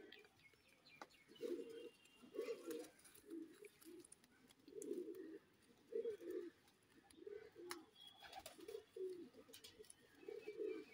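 Domestic pigeons cooing faintly, a run of low coos repeating about once a second, with a few light clicks.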